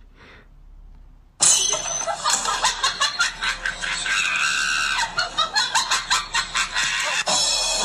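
Loud comedy sound effect of screaming and cackling laughter, starting suddenly about a second and a half in and pulsing rapidly near the end, laid over the cat's 'fainting' at the smell of a dirty sock.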